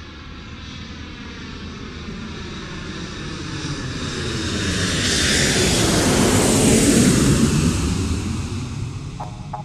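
An airplane flying past. Its engine noise swells to a peak about seven seconds in, with the pitch falling as it goes by, then fades. A plucked synth beat starts just before the end.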